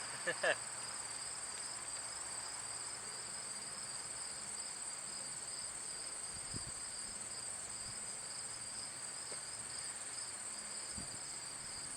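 Steady chorus of crickets trilling, a constant high-pitched chirring that holds unchanged throughout.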